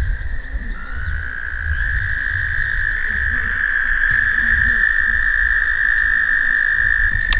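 American toads trilling: long, steady, high-pitched trills that overlap, one fading out as another starts about a second in and holds almost to the end.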